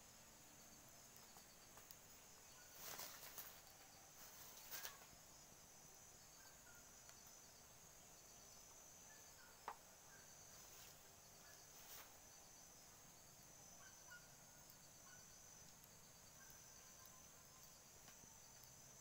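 Near silence with a faint, steady high-pitched insect drone. A couple of brief crackles come a few seconds in, and a single sharp click comes near the middle.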